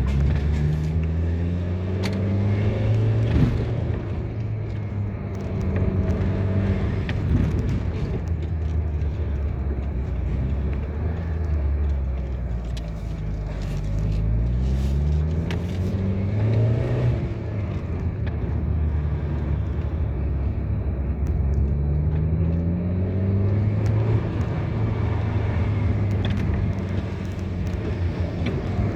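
A road vehicle's engine running under way over steady road noise. Its pitch climbs and drops back several times as it accelerates through the gears.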